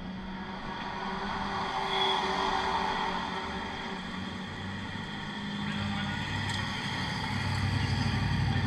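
Engines of classic cars running at low revs as they creep along the pit lane, getting louder as the cars come closer near the end.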